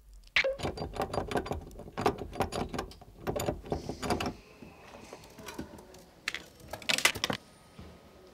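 A fast run of sharp clicks and taps for about four seconds, then quieter, and a short cluster of louder knocks around seven seconds in.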